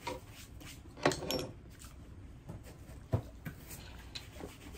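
A few faint clicks and knocks as a glass soda bottle is handled and raised to drink from, the sharpest knock a little after three seconds in.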